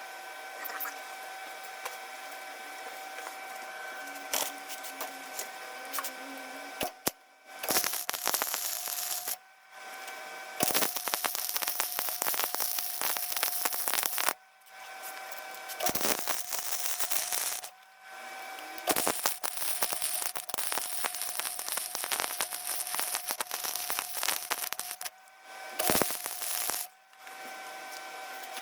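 Electric arc welder laying welds on steel light mounts, crackling in about six bursts of one to six seconds, with a steady hum between them.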